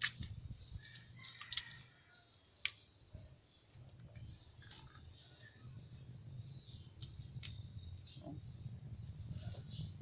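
Quiet rural outdoor ambience: a high, thin steady trill comes and goes twice, over scattered small clicks and rustles of leaves and a plastic bag being handled.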